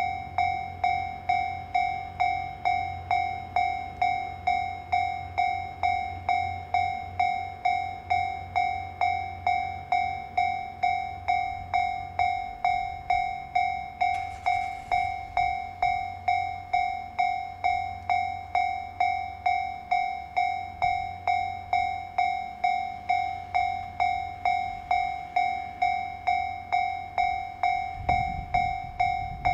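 Japanese level-crossing warning alarm ringing, an electronic two-tone bell struck in an even rhythm a little under twice a second. A brief hiss sounds about halfway, and a low train rumble swells in near the end.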